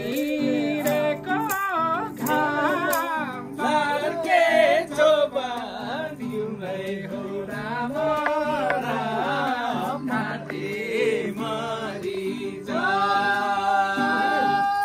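Music: a Nepali dohori folk song, a voice singing with wavering pitch over steady instrumental backing, with sharp beats in the first few seconds and a long held note near the end.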